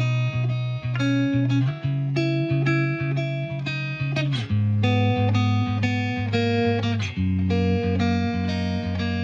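Background music: a plucked guitar picking out a melody in even notes over a steady bass line.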